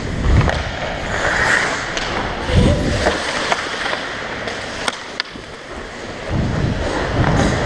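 Ice skate blades scraping and carving on rink ice, heard from a helmet-mounted camera, with a few sharp clicks and low rumbles of wind on the microphone.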